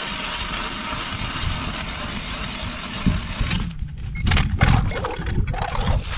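Hand ice auger drilling into lake ice: a steady grinding scrape of the blades cutting, which breaks into uneven, separate spells about three and a half seconds in.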